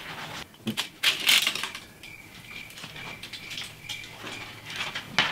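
Cutlery clinking and scraping on a plate as flaky baked phyllo pastry is cut and crackles, in short irregular bursts, loudest about a second in.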